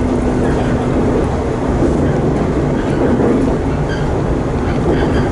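Electric commuter train running between stations, heard from inside the carriage: a steady rumble of wheels on rail.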